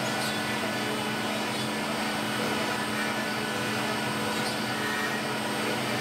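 CNC router spindle running steadily with a thin tapered engraving bit cutting into a burl-wood panel, a constant motor whine over the noise of the cut.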